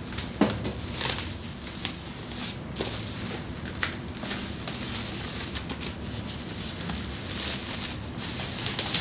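Plastic wrapping being cut and pulled off a parcel: irregular crinkling and rustling of the plastic bag and packing tape, with scattered sharp clicks and snaps, one of the loudest about half a second in.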